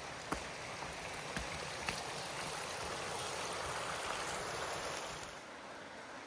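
Forest creek rushing steadily, swelling in the middle and fading a little about five seconds in, with a few sharp drips or ticks in the first two seconds.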